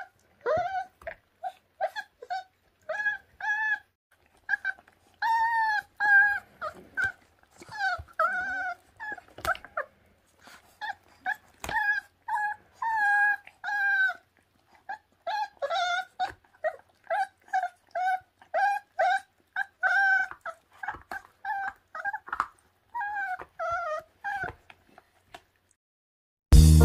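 26-day-old feral dog puppies whimpering: a long run of short, high, whining yelps, several a second, many bending up and down in pitch. Music comes in at the very end.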